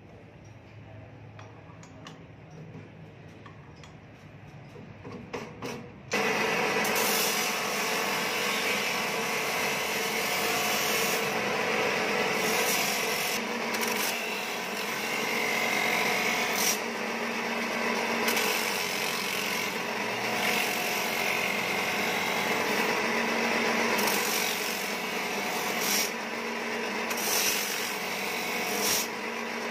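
Drill press switched on about six seconds in, spinning an abrasive sanding disc against the lining of a tractor brake band: a steady motor hum under the rasp of the lining being sanded, with brief louder surges as the band is pressed harder onto the disc. Before it starts, a few light clicks as the disc is handled.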